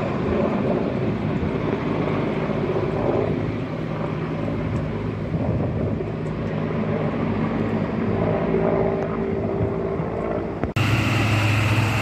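Firefighting helicopter, carrying a water bucket, running overhead: a steady rotor-and-turbine noise. Near the end it cuts suddenly to a fire truck's engine running steadily.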